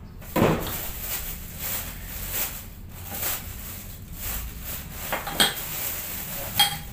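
Clatter and clinks of small hard, partly metal objects being handled. There are several separate knocks; the loudest comes about half a second in, and two sharp clinks that ring briefly come near the end.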